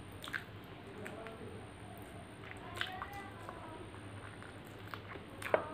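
Eating rice and curry by hand: wet squishing of the food between the fingers and mouth clicks and lip smacks as a mouthful is taken and chewed, with a sharper smack near the end.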